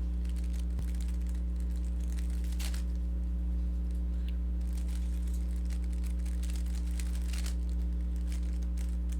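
Plastic Rubik's cube being turned quickly through algorithms: faint rasping clicks of the layers sliding, in bursts. A steady low electrical hum runs underneath.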